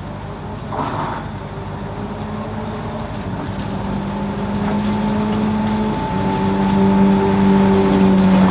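O&K narrow-gauge diesel locomotive hauling a passenger train. Its engine gives a steady drone that grows louder as the train approaches.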